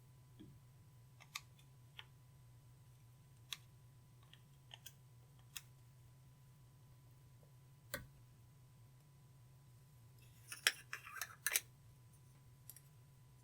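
Clear slime being worked by hand with eyeshadow mixed in, giving scattered sharp clicks and a short run of crackling pops about ten and a half seconds in, over a faint steady hum.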